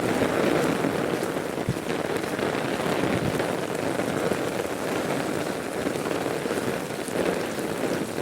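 Heavy rain falling steadily: a dense, even hiss of drops striking surfaces.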